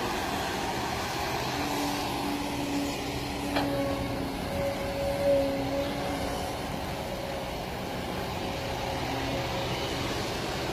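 Kobelco hydraulic excavator running while it digs and swings, a steady diesel engine note with steady tones that come and go. There is a short click about three and a half seconds in.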